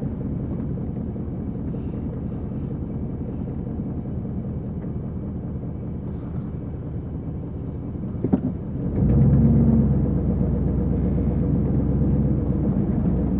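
Vehicle engine running at low speed, with a couple of sharp clicks about eight seconds in; about nine seconds in the engine note steps up louder and fuller as the vehicle pulls forward, and holds there.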